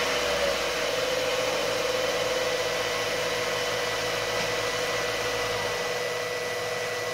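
Steady motor hum with a whine from a 12-volt fluid transfer pump, over a 2015 Subaru Forester's 2.5-litre engine idling, while old CVT fluid streams from the cooler line into a plastic container. A low rumble sits under the hum and fades about six seconds in.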